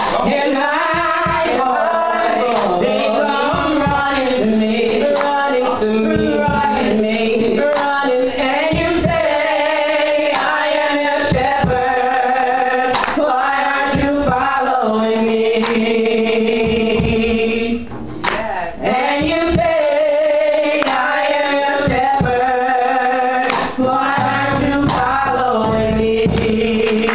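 A man and a woman singing a gospel duet into microphones, their voices bending through runs and holding a long note about halfway through.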